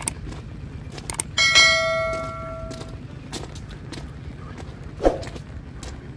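Subscribe-button sound effect: quick clicks, then a single notification-bell chime about a second and a half in that fades out over about a second and a half. Under it, footsteps crunch on a gravel path.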